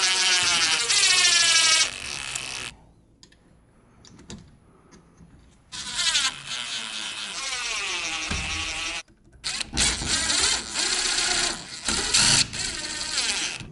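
DeWalt cordless drill-driver driving screws into door latch and lockset hardware, in three long runs separated by short pauses. The motor whine shifts in pitch and sinks as the screws pull tight.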